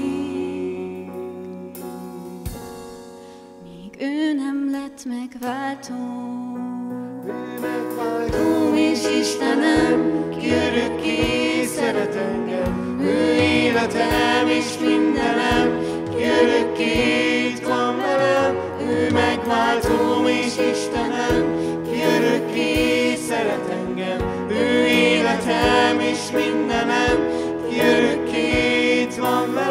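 Live worship band playing a song: it starts softly on sustained keyboard notes, then about seven seconds in the drums and the full band come in. Male and female voices then sing the song together in Hungarian.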